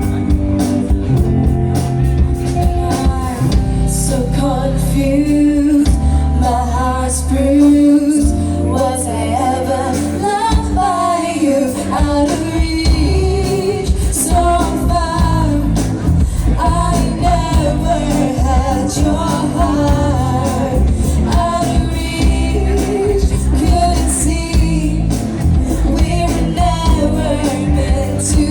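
A live band playing a pop song with a woman singing the melody over the band's accompaniment and a steady beat.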